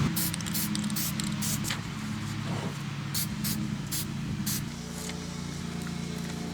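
Dry graphite lubricant being sprayed in about a dozen short hissing puffs, clustered in the first half and tapering off about four and a half seconds in, over a steady low hum.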